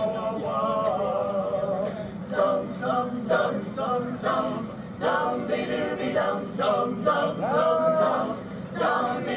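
A mixed men's and women's chorus singing a cappella, amplified through the stage PA. The voices hold sustained notes at first, then break into short rhythmic notes from about two seconds in.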